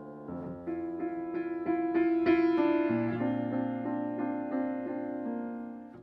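Solo piano playing the closing bars of a song accompaniment: struck chords about three a second, loudest about two seconds in, then easing off before the sound cuts off at the end.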